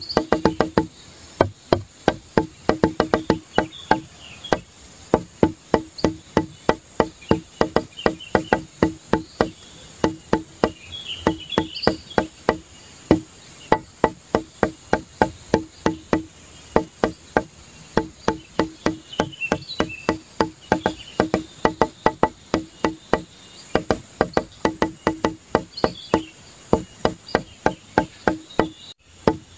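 Background music with a quick, woody plucked beat of about three notes a second, over a steady high hiss.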